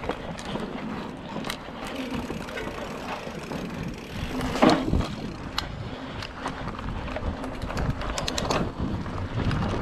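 Mountain bike rolling over a rough dirt trail, its tyres and frame rattling over bumps, with a sharp knock about halfway through and a quick run of clicks near the end.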